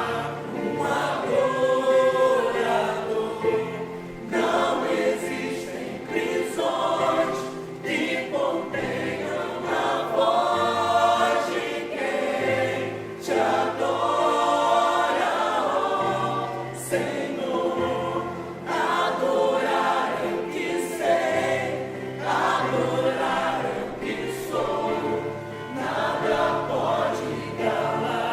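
Church choir singing a hymn, with steady low notes sustained underneath the voices.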